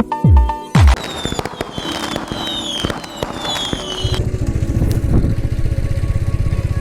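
The end of an electronic intro with deep, falling drum hits. Then about three seconds of crackling with several quick falling whistles, like a firework effect. About four seconds in, a steady, rapidly pulsing engine drone starts.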